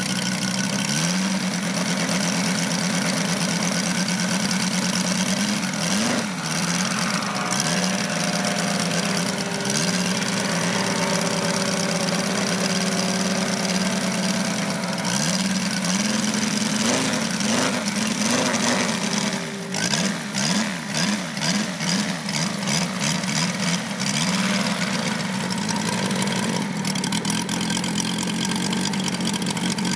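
Large-scale radio-controlled model airplane's piston engine running just after being hand-started, idling steadily with the propeller turning. The revs rise and fall in short throttle blips a few times, most of them in the second half.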